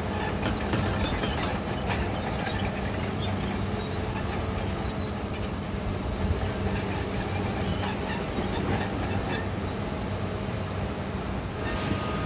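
Demolition machinery at work: a steady diesel engine hum with scattered short, high metallic squeals and a few knocks.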